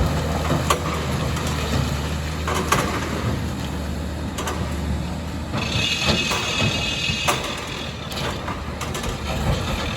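Volvo EC460B excavator running steadily at work with a low engine hum, while its bucket gathers aggregate with scattered sharp clacks of stone. A bit past the middle, a high squeal rings out for about two seconds.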